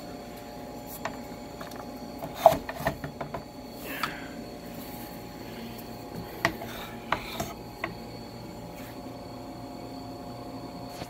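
Kreg plunge saw being handled on its guide rail, not running: scattered clicks and knocks of its housing and fittings, the sharpest one about two and a half seconds in, over a steady low hum.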